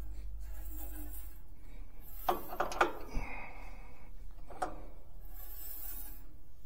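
Handling clicks and knocks from working on a band sawmill's blade and frame during a blade change: a quick cluster of sharp clicks a little over two seconds in, one more click about two seconds later, over a low steady hum.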